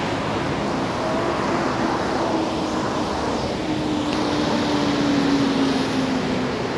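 Traffic on a rain-soaked city street: a steady hiss of tyres on wet pavement, with a vehicle's engine hum that slowly falls in pitch over several seconds.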